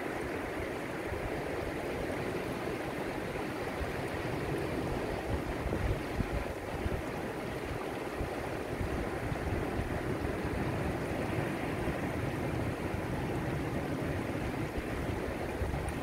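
Small waves washing over rocks and sand in the shallows: a steady rush of surf with a low, uneven rumble underneath.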